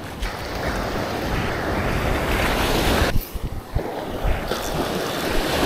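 Surf washing onto a beach, with wind rumbling on the microphone. The wash swells over the first three seconds, drops off abruptly, then builds again.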